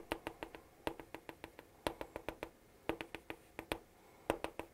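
Chalk tapping on a chalkboard in quick short strokes, drawing a dashed line: a fast, uneven series of sharp clicks in short runs with brief pauses between them.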